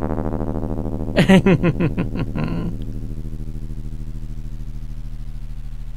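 Synthesized inharmonic tone from a discrete summation formula, a 110 Hz carrier with a modulator at 55 times the square root of 2 giving upper and lower sidebands, playing as one long note whose upper partials die away as the envelope decays. A brief voice-like warble sounds over it between about one and three seconds in.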